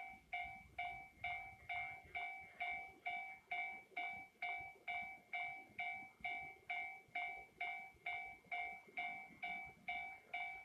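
Japanese railway level crossing warning bell ringing steadily at about two strokes a second, each stroke a two-tone ding that fades before the next: the sign that the crossing is closed for an approaching train. A faint low rumble sits under the first two seconds.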